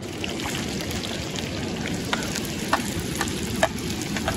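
Sliced red onions sizzling as they drop into hot oil in a kadai, a steady frying hiss with scattered sharp crackles and pops.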